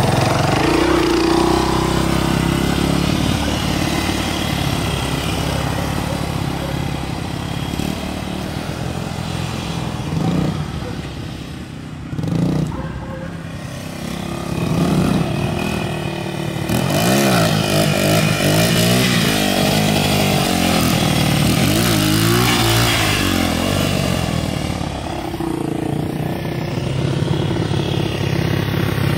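Small Honda dirt bike's single-cylinder engine running close by, then pulling away and fading with distance about ten seconds in. It grows louder again from about seventeen seconds in, with rising and falling revs as the bike rides back.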